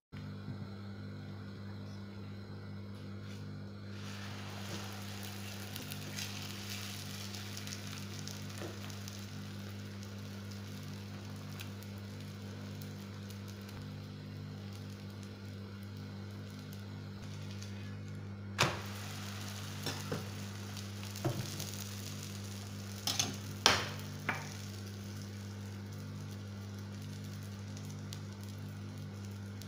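Layered msemen (mdlouk) flatbread frying in oil in a pan, sizzling softly and steadily over a steady low hum. A few sharp knocks and clatters come about two-thirds of the way through.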